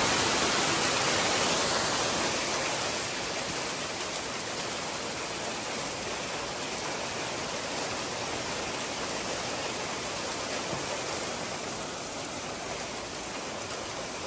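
Heavy rain falling, a dense, steady hiss that eases a little about three seconds in.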